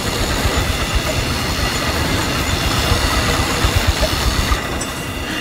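Motorcycle-driven spinning spiral-blade machine running at speed: a steady, loud mechanical rumble with thin high tones over it. The high part drops away briefly near the end.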